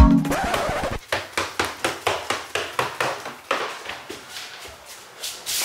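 Quick footsteps on an indoor staircase, about three or four steps a second, growing fainter; a short hiss near the end.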